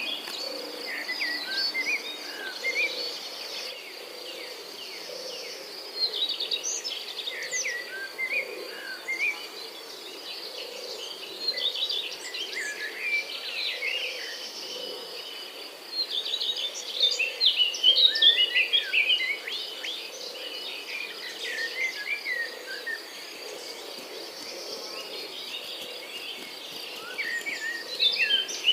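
Morning nature ambience: birds chirping and twittering in bouts over a steady high insect trill.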